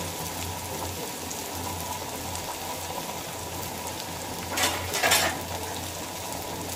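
Malabar spinach seeds sizzling steadily in hot oil in an open kadai as they roast and their moisture cooks off, with two brief louder crackles about two-thirds of the way through.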